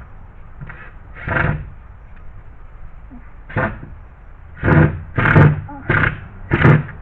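A man's short mumbled vocal sounds, six brief bursts with most of them bunched in the second half, over a steady low hum.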